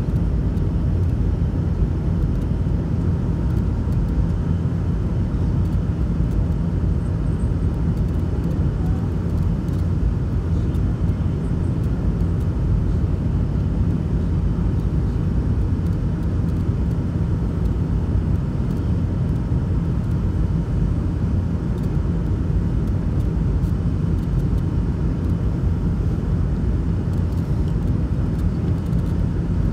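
Steady low rumble of cabin noise inside a McDonnell Douglas MD-88 airliner on approach to landing: airflow and its tail-mounted turbofan engines, with no change in level.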